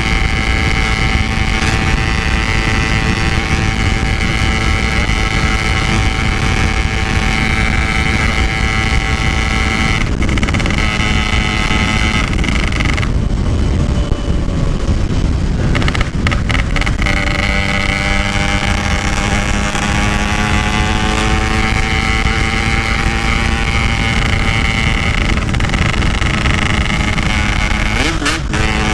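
Yamaha RX-King two-stroke single running under way at steady road speed, with wind buffeting the microphone. About 13 s in, the engine note falls away for a few seconds, then it pulls again and the pitch climbs.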